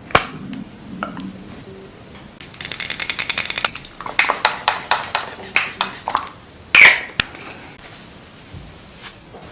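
Makeup items being handled close up: a fast run of tapping about two and a half seconds in, then a string of separate clicks and one loud click with a brief swish about seven seconds in.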